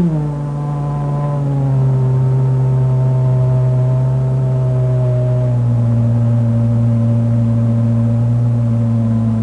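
A bear's howl: one long, low call that drops in pitch at the start and is then held steady.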